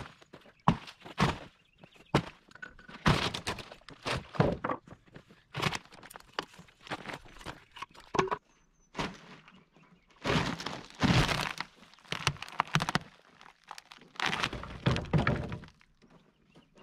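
Hammer knocking and prying wooden form boards and stakes off the edge of a cured concrete footing. An irregular run of sharp knocks and thunks, with longer scraping stretches in the second half as boards are worked loose and pulled away.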